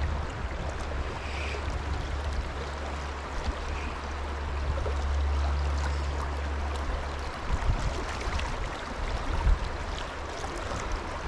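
Creek water running steadily around the angler, with a low rumble underneath that eases off about seven seconds in.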